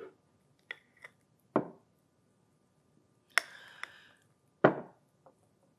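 A metal spoon clinking and scraping against a glass mixing bowl and a small dip cup as custard dip is scooped and spooned out. The sound is a handful of separate clicks and knocks spread about a second apart, one with a brief scrape after it.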